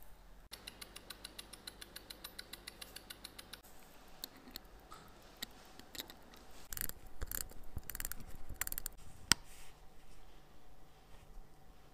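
Small metallic clicks from an Omega co-axial watch movement being worked on. A fast, even run of clicks lasts about three seconds, then come scattered taps and clicks, with one sharp, louder click later on.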